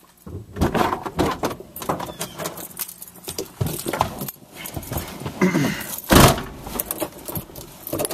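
Clicks, rattles and knocks of people handling things inside a car, irregular throughout, with one loud thump about six seconds in.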